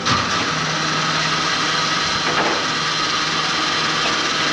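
Fuel station diesel dispenser's pump motor switching on suddenly and running steadily with a low hum.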